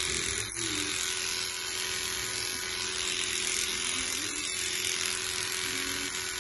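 Electric dog grooming clippers running steadily while being drawn through a Welsh Terrier's coat on the cheek and throat.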